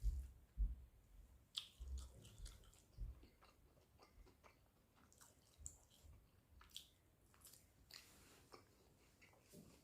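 A person chewing a mouthful of rice and egg curry close to the microphone: soft, wet mouth clicks and smacks, with a few low thumps in the first three seconds.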